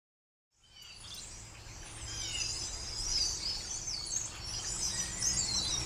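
Many songbirds chirping and trilling together over a low steady hum, fading in from silence about half a second in.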